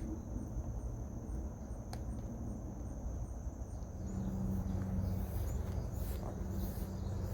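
Outdoor ambience with insects, crickets or similar, trilling steadily in a high thin pulsing tone, and a low hum that comes up about halfway through.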